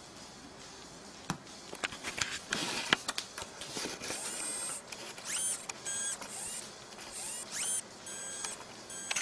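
A few sharp clicks and taps, then a small electric motor whining in several short bursts, each about half a second long and several rising in pitch as they start.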